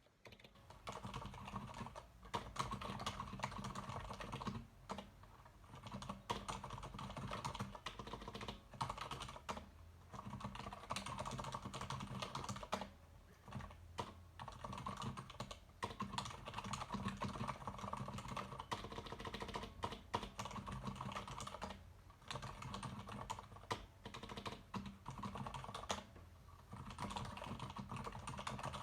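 Fast, continuous typing on a Leopold FC900R PD mechanical keyboard with Cherry MX Silent Red switches: a dense run of keystrokes starting about a second in, broken by short pauses every few seconds.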